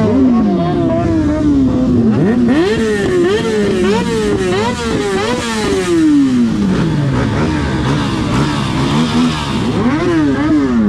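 Motorcycle engines revved hard in quick blips, the pitch rising and falling several times in a row, then one long fall as the revs drop, with another rev near the end and a second engine running underneath.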